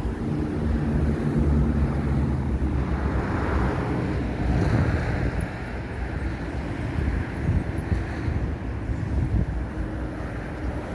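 Wind buffeting the microphone in a low, steady rumble, with a vehicle engine's hum underneath in the first few seconds.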